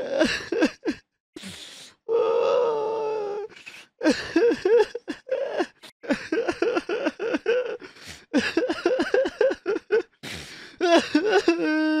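A person crying: quick gasping breaths, a long held wailing cry, then rapid sobbing in short pulses, several a second, and another held wail near the end.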